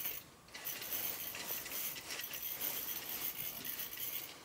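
Faint rustle and soft small clicks of a fishing rod and spinning reel being worked as a hooked fish is pulled up through the ice.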